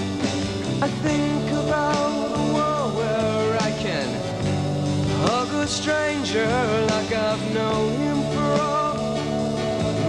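Rock song with a male voice singing held, wavering notes over a full band with steady bass notes and cymbal strokes.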